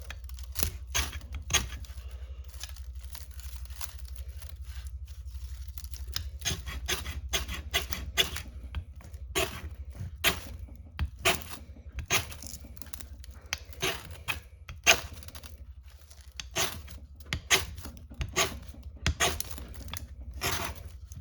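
A knife's spine scraped repeatedly along a ferrocerium rod (fire steel): a series of short, sharp rasping strokes at an uneven pace, one or two a second, with a quieter pause about a quarter of the way in.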